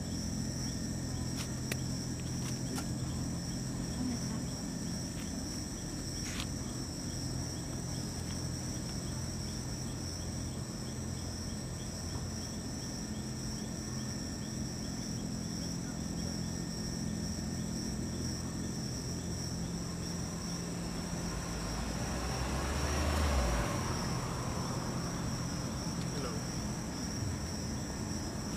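Steady night chorus of insects, a continuous high-pitched trilling over a low steady hum. Near the end a brief rushing swell with a low rumble rises and fades.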